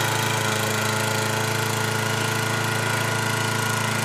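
Walk-behind gas lawn mower engine running steadily at a constant pitch.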